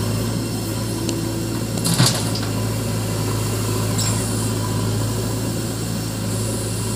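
Diesel engine of a JCB backhoe loader running steadily as it loads a dump truck. About two seconds in, a loud clatter as rubble from its front bucket lands in the steel tipper body.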